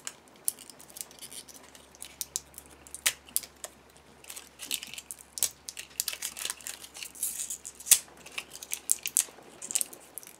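A thin plastic seal wrapper being picked at and torn off the cap of an acrylic paint marker. It gives irregular crinkling and crackling with many small clicks, and the wrapper tears unevenly instead of along its tear line.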